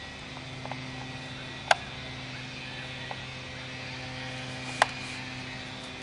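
Golden retriever puppy chewing a stick, with two sharp cracks about three seconds apart, over a steady low hum.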